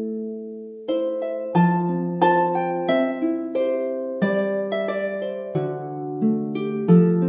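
Background music: a melody of plucked notes, each starting sharply and dying away, over lower bass notes at a steady, moderate tempo.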